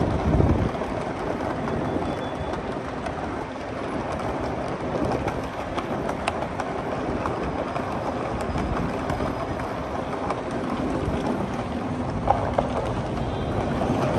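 Wheeled suitcase rolling over paving slabs: a steady rattling rumble, with one sharp knock about twelve seconds in.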